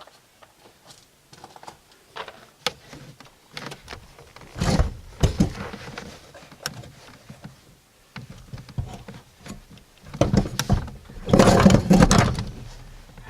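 A car's front seat being shifted and worked onto its floor mounting studs: a string of knocks, clunks and scraping from the seat frame, louder about five seconds in and again near the end.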